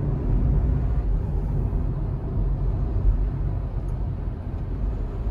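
Car cabin noise: a steady low rumble from the engine and the tyres on the road, heard from inside the car.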